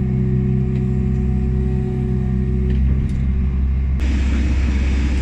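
Liebherr 926 excavator's diesel engine running steadily with a low hum. About four seconds in, the sound changes abruptly to a rougher, noisier rumble.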